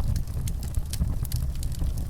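Wood fire in a fireplace crackling, with many irregular sharp snaps and pops over a steady low rumble.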